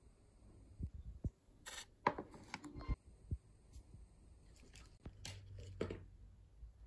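Faint scattered rustles and light knocks of things being handled, in two clusters, over a low hum.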